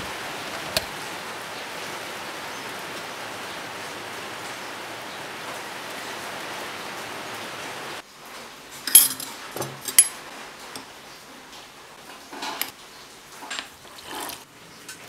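A steady rushing hiss for about eight seconds that cuts off suddenly. Then a metal spoon clinks sharply against a ceramic mug twice, with smaller clatters, and hot water is poured into the mug near the end.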